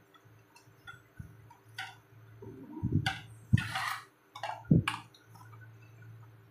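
Plastic clicks, knocks and scraping as a battery compartment cover is pressed and pushed against the plastic underside of a toy RC car and does not snap into place. The loudest part is a cluster of knocks and a short scrape about three seconds in, with another knock nearly five seconds in, over a faint steady hum.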